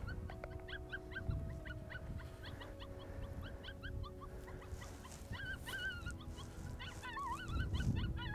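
Coyote-style vocals: a quick run of short, high yips, joined from about halfway through by longer wavering whines, the kind of whimpering used to pull coyotes in during the breeding season.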